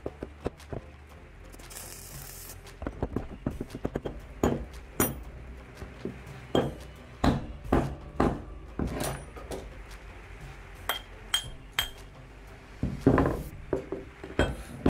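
Chipping hammer knocking slag off a fresh arc weld on a steel pin: an irregular run of sharp metal taps and clinks, some ringing briefly.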